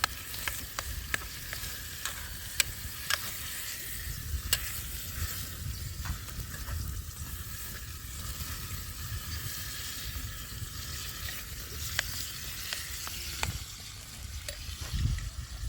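Food frying and sizzling in a pan, a steady hiss with scattered sharp clicks and ticks throughout.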